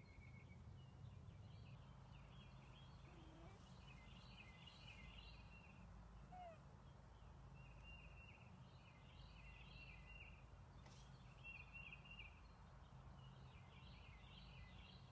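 Faint birdsong: a songbird singing short chirpy phrases again and again, with pauses of a second or two between them, over a low steady hum.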